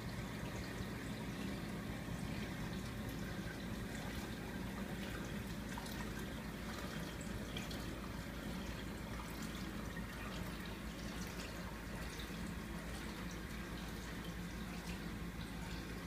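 Running reef aquarium: steady trickling and dripping of water, as from its overflow and sump, over a low, constant hum of pumps.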